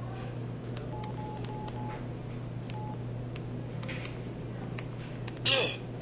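PG-S4600 mobile phone playing short key-tone beeps, four in quick succession about a second in and one more near three seconds, with scattered faint clicks, then a louder electronic sound effect with a falling glide near the end.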